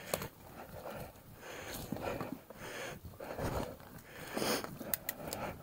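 Mountain biker breathing hard while riding, in soft swells about once a second, with scattered sharp clicks and knocks from the bike over the trail.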